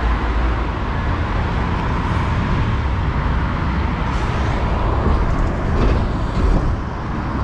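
Steady city street traffic noise: the rumble of passing cars and buses.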